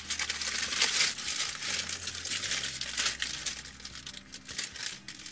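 Continuous crinkling and rustling of paper as takeout sandwiches are handled and unwrapped.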